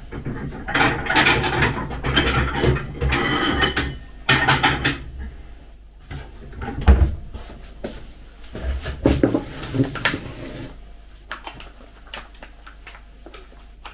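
Kitchen handling sounds as a plate is fetched: clatter of dishes and a cupboard with rustling, a sharp knock about seven seconds in, more knocks a couple of seconds later, then quieter toward the end.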